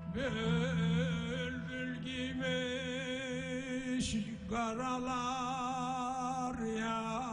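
Male voice singing a Harput maya, a free-rhythm Turkish folk song, in long held notes with wavering ornaments over a steady low accompanying tone. The voice breaks off briefly with an intake of breath about four seconds in, then resumes.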